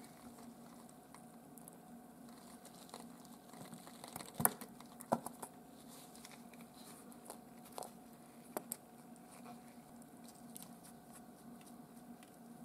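Thin clear plastic film crinkling as it is laid over a watch dial and pressed down by gloved fingers. There are a few sharp clicks and taps about four to nine seconds in, over a faint steady hum.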